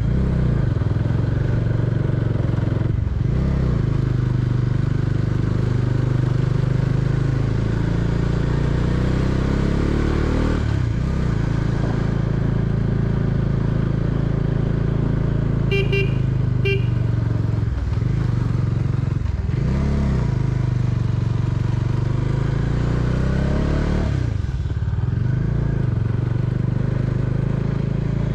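Bajaj Dominar 400's single-cylinder engine running under load on a steep climb at low speed. Its note falls and rises again several times. About halfway through come two short horn toots.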